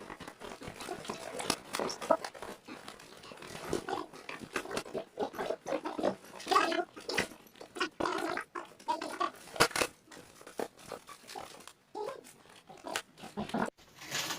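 Cardboard box being cut open and torn by hand, with irregular scraping, crackling and rustling of the cardboard.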